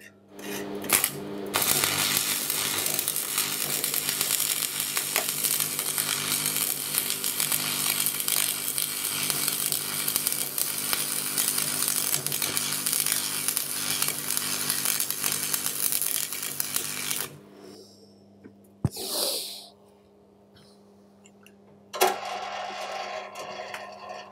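AC transformer stick welder striking an arc with a 6013 rod on rusty steel about a second in, and the arc crackling and hissing steadily for about sixteen seconds before it breaks off; the welder's transformer buzz goes on underneath. After it, a brief burst of noise, then a sharp knock followed by a short rough scraping near the end.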